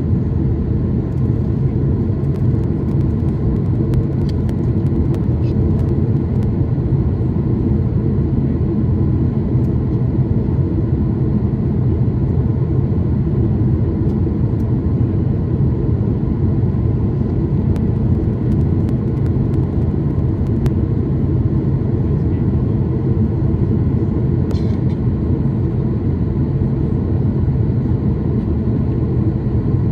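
Steady airliner cabin noise in flight, heard from a window seat: the jet engines and the airflow over the fuselage make an even low rumble, with a faint tick or two.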